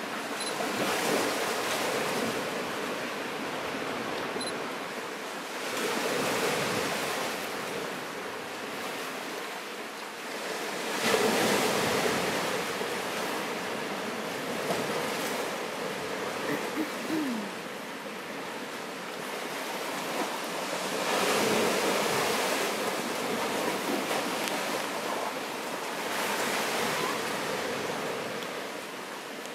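Small waves breaking and washing up a sandy beach among boulders, surging about every five seconds with quieter lulls between.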